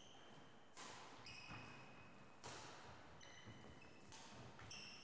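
Badminton rally: three sharp racket strikes on the shuttlecock, about a second and a half apart, with short high squeaks of court shoes on the wooden floor after each.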